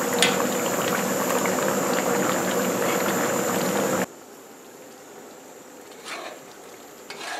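Thick channa and potato curry bubbling and spluttering hard in a large aluminium pot over a gas burner as it is stirred, over a steady burner hum. About four seconds in it cuts off abruptly to a much quieter pot, with a couple of light knocks of a spoon near the end.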